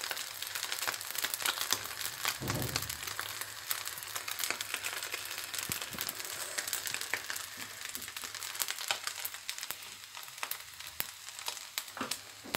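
Rice noodles, egg and bean sprouts frying in a pan with a steady sizzle, with many small clicks and scrapes as they are mixed together. A dull thump about two and a half seconds in.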